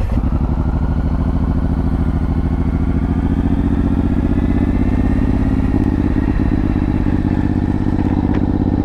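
Suzuki Boulevard M109R's 1783 cc V-twin engine running at low, steady revs with an even pulsing beat, its pitch shifting slightly about six seconds in.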